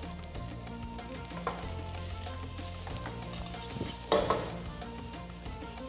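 Fried rice sizzling in a stainless steel wok while a metal ladle stirs and presses it. The ladle scrapes sharply against the wok twice, the louder stroke about four seconds in.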